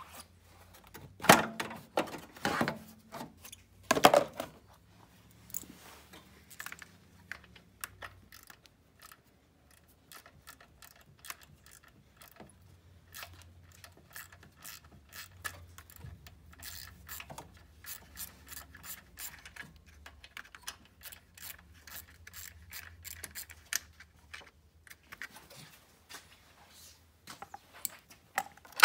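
Hand ratchet clicking in long rapid runs as bolts are worked loose in a car's engine bay, with three louder metal knocks in the first four seconds.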